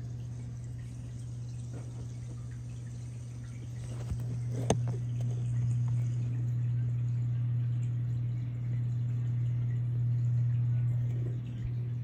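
Reef aquarium equipment running: a steady low pump hum under water trickling and splashing, with a single sharp click a little under five seconds in.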